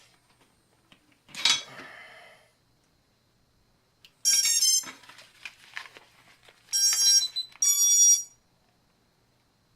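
Electronic start-up beeps from an FPV quadcopter as it is powered up. A clack of handling comes about a second and a half in. A cluster of short tones sounds around four seconds in, then two more beeps follow near the end.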